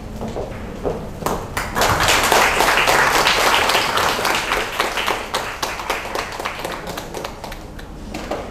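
Small audience applauding: scattered claps about a second in that swell to a peak a second later, then thin out toward the end.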